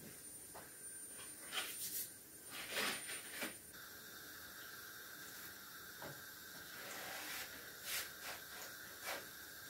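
Faint hiss of dough pieces frying in oil on low heat, with a few light clicks and taps scattered through.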